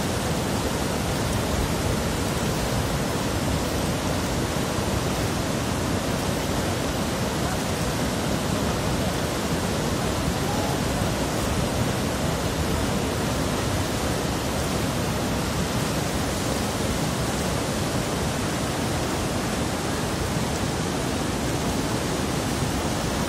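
Snow-fed mountain stream rushing and cascading over boulders close by, a steady, unbroken rush of water.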